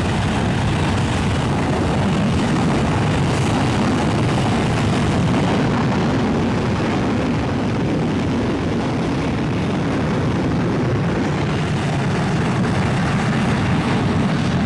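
Jet airliner engines running at high power: a loud, steady rush of noise with no breaks.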